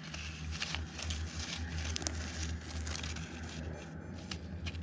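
Metal-detecting pinpointer poking and scraping through loose dirt and pebbles, giving scattered faint clicks and scrapes over a steady low rumble.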